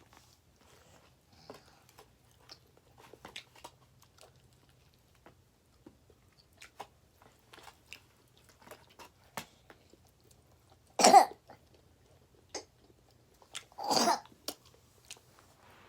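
Quiet chewing and small mouth clicks while eating pizza, broken by two loud coughs about three seconds apart near the end.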